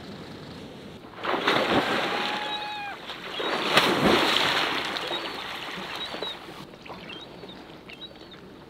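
Loud splashing of river water as a brown bear plunges through the shallows after salmon, in two surges: one starting about a second in and a heavier one with a sharp slap around four seconds, then settling to the river's steady rush. A gull gives a drawn-out call during the first splash.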